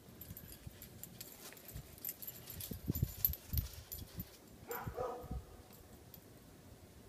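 A dog barking briefly about five seconds in. Before it come several dull thumps and light clicking and crackling.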